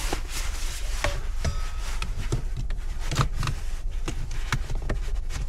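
Steady low rumble inside a parked car, with scattered short knocks and rubbing, about half a dozen spread through.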